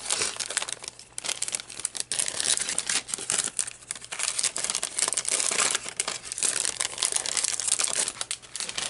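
Paper and plastic packaging crinkling and rustling as hands handle it, in a dense run of small crackles.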